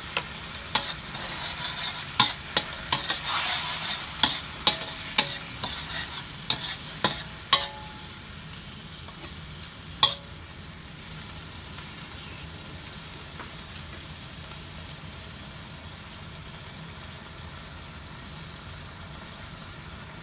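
Metal spatula tapping and scraping against a stainless steel wok while stirring a sweet and sour sauce, with about a dozen sharp clinks over the first eight seconds and one more about ten seconds in. After that only a faint steady sizzle of the simmering sauce remains.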